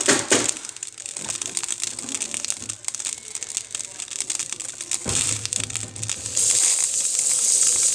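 Cuisinart drip coffee maker brewing: irregular crackling and popping as water heats in the reservoir tube, turning into a steady sizzling hiss about six and a half seconds in.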